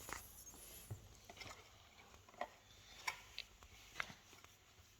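Faint, scattered clicks and taps of small plastic toys being handled and set into a plastic toy playset, several short knocks spread unevenly through the stretch.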